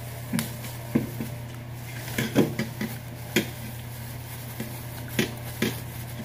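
Thin plastic food bag crinkling in short, irregular crackles as it is untied and peeled open around a portion of palabok noodles.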